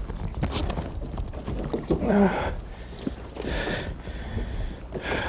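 Water splashing and sloshing at the side of a boat as a large lake trout is handled in the water for release, two louder splashes about two and three and a half seconds in, over a low steady rumble.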